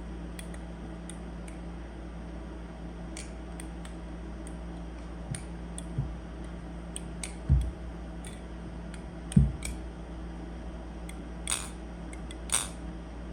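Squid Industries Tsunami balisong (butterfly knife) being flipped: scattered light metallic clicks from the handles and latch, with two duller knocks partway through. The flipping is very quiet, and the owner says the pivots definitely need oil.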